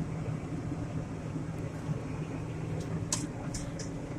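John Deere 8770 four-wheel-drive tractor's engine running steadily with a low hum, with a couple of faint clicks about three seconds in.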